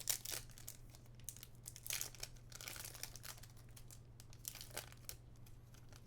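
Foil trading-card booster pack wrapper crinkling and rustling in the hands in several short bursts, over a low steady hum.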